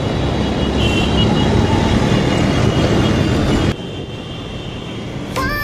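Dense road traffic heard from a motorcycle riding among cars, taxis and buses: a continuous rumble of engines and road noise. It drops suddenly to a quieter traffic hum about two-thirds of the way through, and background music begins at the very end.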